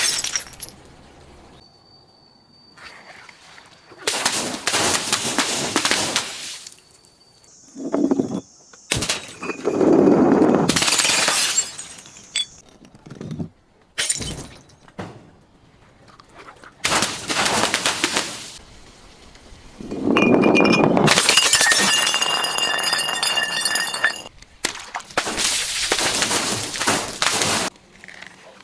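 Glass bottles breaking and shattering, about half a dozen separate crashes with quieter gaps between them. Some crashes have a brief high ringing from the glass.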